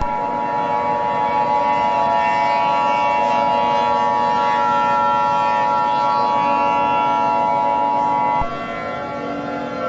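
Emergency Alert System attention signal: a steady electronic alarm tone, held for about eight seconds and then cutting off sharply. It sounds over a steady droning background.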